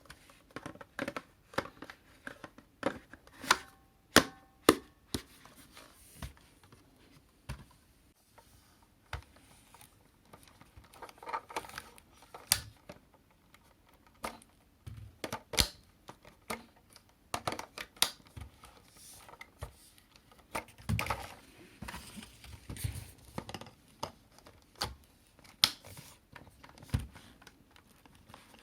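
Handling noises: irregular sharp clicks and knocks of hard objects with short rustling between them, loudest around four seconds in and again near the middle.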